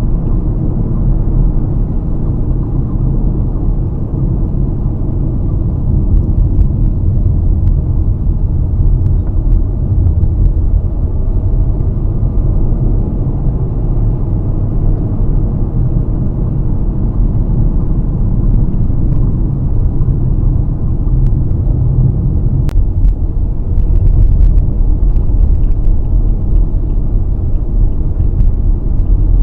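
Steady road rumble of a car driving, heard from inside the cabin, with a few faint ticks.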